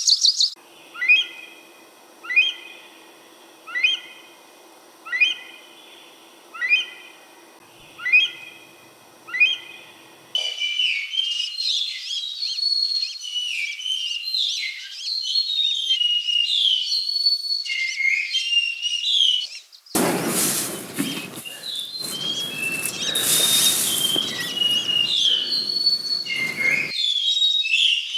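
Mountain birdsong. A bird repeats a short, downward-sliding whistled call seven times, about every second and a half. Then many birds chirp together, and for several seconds in the latter part a loud rushing noise runs under the chirping.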